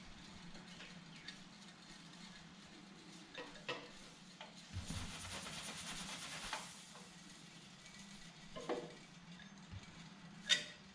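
Homemade Hero's engine, an aluminium drink can hung over a gas burner: a soft hiss of steam from its jets for a couple of seconds about five seconds in, over a low steady hum. A few light knocks, and near the end a sharp metallic click as a hand grabs the can.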